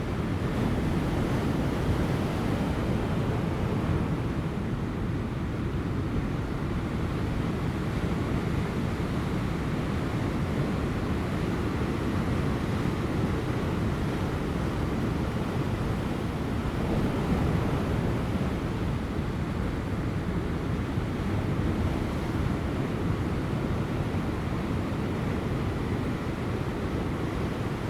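Ocean waves breaking on rocks: a steady, deep surf rumble that swells gently now and then, with light wind.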